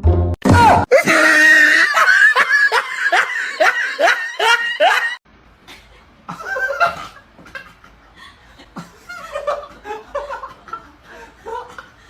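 A person laughing hard in a quick run of loud, repeated bursts for about five seconds. The sound then cuts off abruptly, and quieter voices and laughs follow.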